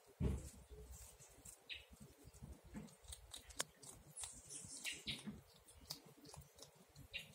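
Faint rustling and scattered clicks in dry leaf litter as a baby Virginia opossum noses about, with a soft low bump just after the start.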